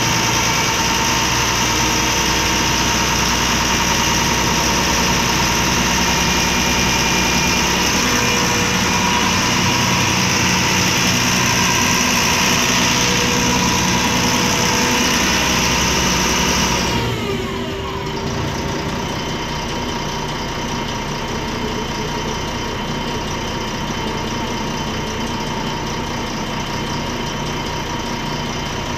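MAN D0826 LOH inline-six diesel idling steadily, heard from inside the city bus. About 17 s in, a high whine cuts off and a tone falls away as something spins down, leaving the idle a little quieter.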